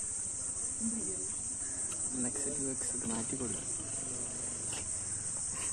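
Steady, high-pitched drone of an insect chorus, with faint distant voices underneath.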